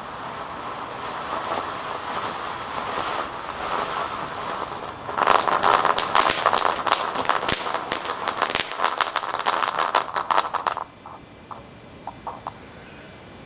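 Small consumer fireworks burning: a steady hiss of a spark fountain, then from about five seconds in a loud, rapid crackling for some five seconds. It cuts off suddenly, leaving a few small pops and a fainter hiss.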